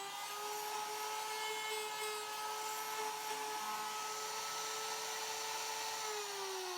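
Router in a Pantorouter mortising jig running with a steady high whine as it cuts a mortise in pine. Near the end its pitch slides down as the router winds down.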